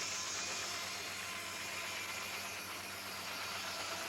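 Steam-powered sawmill running, giving a steady, even noise of hiss and mechanical running with a faint hum beneath.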